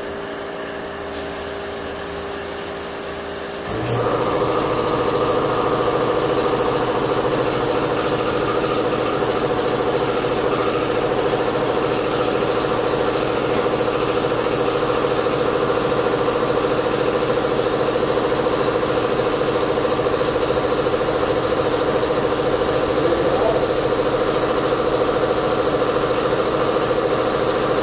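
A piezo-free shop air compressor kicks on suddenly about four seconds in and runs steadily with a constant motor drone and rattle, refilling its tank after spray-gun use; before it starts there is a quieter steady hiss and hum.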